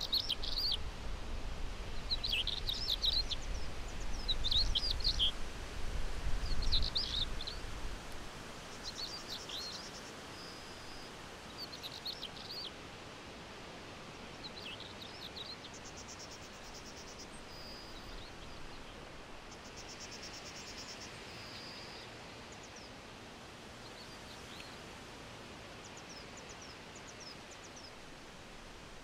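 Small songbirds singing short chirping phrases every second or two, with a few quick buzzy trills, over a steady faint hiss. A low rumble runs under the first eight seconds or so.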